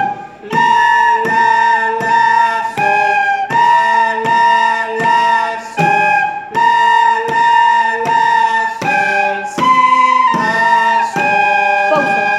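Several white plastic soprano recorders played together by beginners, playing the notes si, la and sol (B, A, G) as a string of separately tongued notes, each about half a second long with short breaks between, a few held longer.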